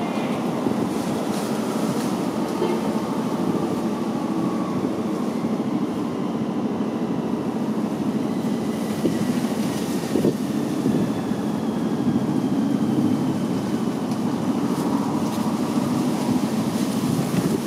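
Kittens purring close to the microphone: a continuous, rapidly pulsing rumble.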